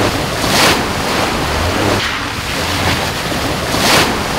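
Toyota Land Cruiser driving through a mud pond, its tyres throwing up muddy water in splashing surges about half a second in and again near the end. The low hum of its engine runs underneath.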